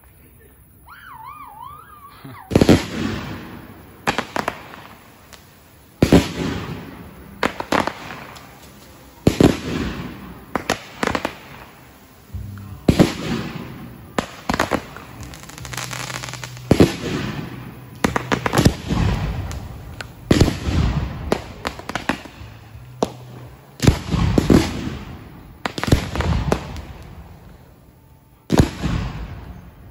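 Fireworks going off: after a quiet start, a long string of loud bangs, about one every one to two seconds, each trailing off before the next.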